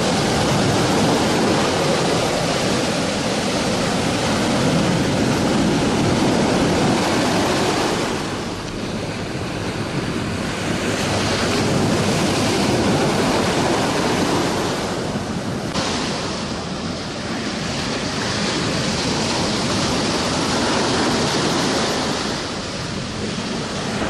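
Heavy surf from a rough, wind-driven sea breaking against a rocky shore and stone seawall: a continuous rush of water mixed with wind, swelling and easing every few seconds.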